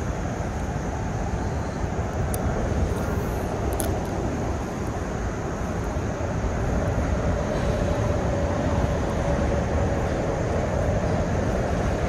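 Steady rushing of flowing creek water. A faint drone joins in about halfway through and fades near the end.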